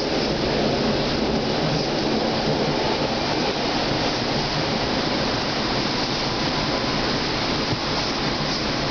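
Munich U-Bahn Type A train running through a tunnel, heard from inside the passenger car: a steady, even rolling noise of wheels on rail that holds at the same level throughout.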